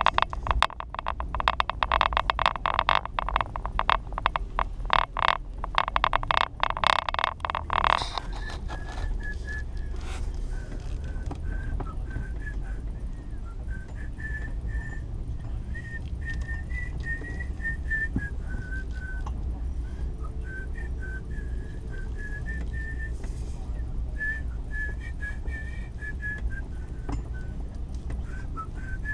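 Low, steady drone of a truck driving slowly, heard from inside the cab, with a dense rapid crackling rattle for the first eight seconds. After that a person whistles a wandering tune over the drone.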